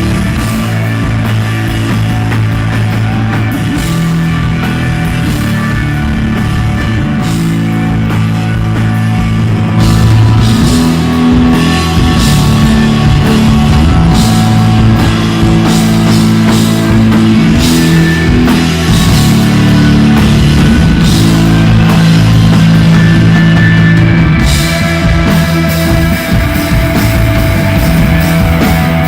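Live instrumental desert-rock jam on electric guitar, bass and drum kit, with sustained guitar and bass notes over steady cymbal wash. It grows louder about ten seconds in.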